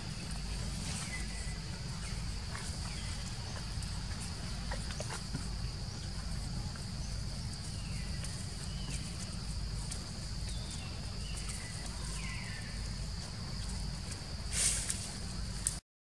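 Forest ambience: a steady high-pitched insect drone over a low rumble, with a few faint, short falling calls now and then. A brief louder sound comes near the end, and then the sound cuts out for a moment.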